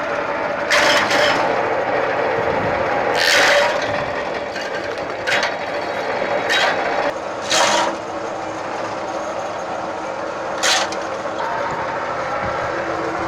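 A shredding or chipping machine grinding steadily, with about six sharp cracks as material is broken up. The loudest cracks come about a second in, and three and a half and seven and a half seconds in.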